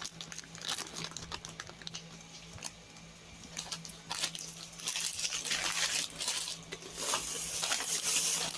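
Plastic snack packets crinkling and rustling as they are handled, with scattered small clicks; the crinkling gets louder about halfway through.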